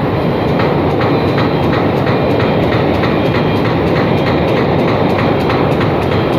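Loud, steady machinery noise with a regular clatter about three times a second.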